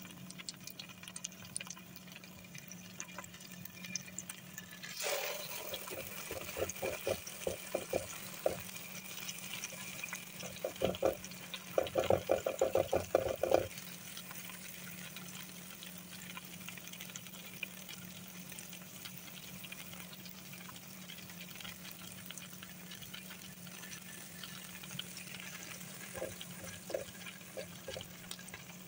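Carrot and egg patties shallow-frying in a little oil in a nonstick pan, a low steady sizzle with fine crackling over a faint steady hum. About five seconds in the sizzle jumps as another patty goes into the oil, followed by two runs of quick soft knocks, the busiest just before fourteen seconds, and a few more near the end as a patty is pressed flat in the pan.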